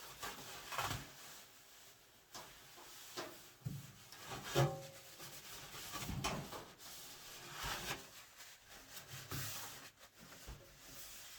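Irregular rubbing and wiping strokes of a paper towel against the dryer's sheet-metal cabinet, with a knock about four and a half seconds in.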